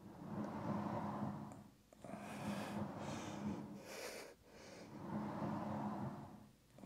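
Merrithew V2 Max Plus Pilates reformer carriage rolling out and back along its rails in three roughly two-second strokes, with a low steady hum from the wheels and heavy breathing over it.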